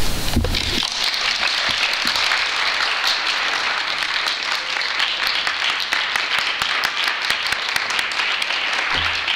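Audience applauding: many hands clapping in a dense, steady patter that starts about a second in.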